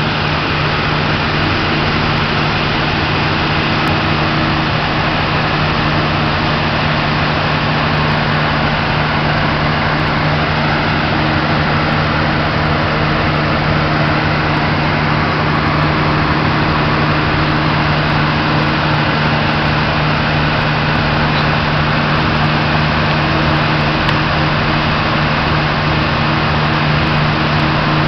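A boat's diesel engine running steadily close by: a constant low hum at one unchanging pitch over broad engine noise.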